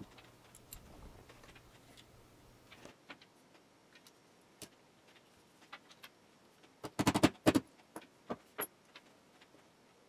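Scattered faint metallic clicks and clinks as the parts of a disassembled Umarex Colt SAA CO2 revolver are handled, with a quick run of sharper clicks a little past the middle.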